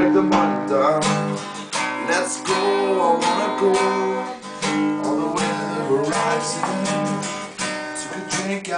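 Acoustic guitar strummed in a steady rhythm, playing a song's chords.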